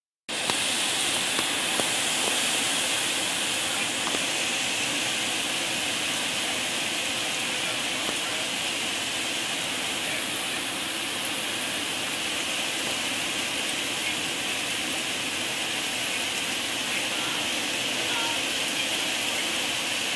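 Heavy wind-driven rain pouring steadily, a continuous rushing hiss that cuts in abruptly just after the start.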